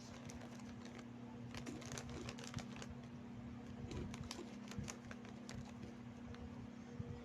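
Crunchy fried-corn snacks (Kornik) being chewed close to the microphone: many small, irregular crunching clicks and crackles over a steady low hum.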